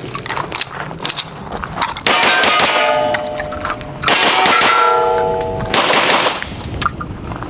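9mm 2011 pistol fired in quick strings at steel targets, each shot answered by the clang of a hit plate, which keeps ringing. There are two loud volleys, about two seconds in and again about four seconds in. The pistol cycles through a mix of backward-seated bullets and odd hollow points without a jam.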